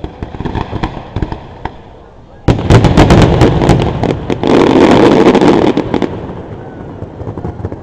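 Aerial fireworks shells bursting at close range: scattered cracks at first, then about two and a half seconds in a sudden rapid volley of loud bangs and crackling that dies down a little after six seconds in.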